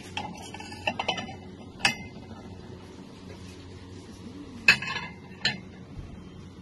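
White ceramic bowls and plates clinking against each other as they are handled on a shop shelf: a handful of sharp clinks, the loudest a little under five seconds in, over a steady low hum.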